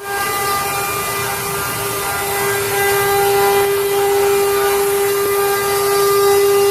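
CNC router spindle carving wood: a steady high whine on one unchanging pitch over a constant hiss of cutting.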